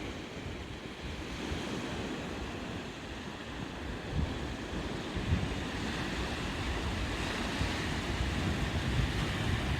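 Waves of Pangong Tso washing against the lakeshore, with wind buffeting the microphone in low gusts. The sound builds slightly toward the end.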